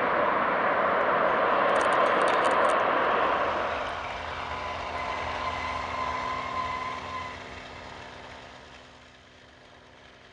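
Lockheed Super Constellation's four radial piston engines roaring loudly as the airliner rolls out on the runway after landing. About four seconds in, the sound drops to a quieter, steady engine run with a high whine as it taxis, then fades away.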